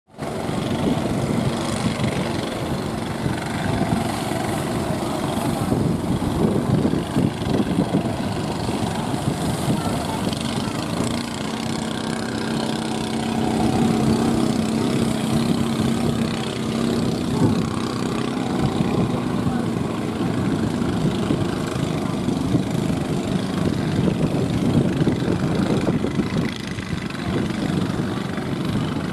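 Heavy surf breaking, a steady loud rush of waves with wind, with a low steady hum for several seconds around the middle.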